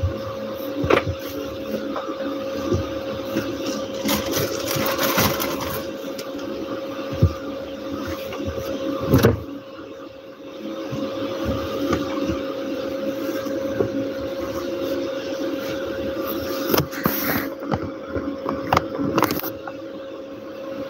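Bedding and clothes rustling and being handled, with a few sharp knocks, over a steady mechanical hum that holds one constant tone throughout.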